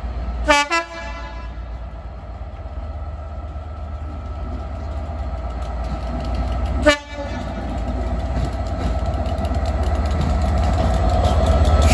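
DB Class 67 diesel locomotive sounding its horn in two short blasts, a quick two-note one about half a second in and another about seven seconds in. Its engine hums and whines underneath, growing steadily louder as it draws nearer.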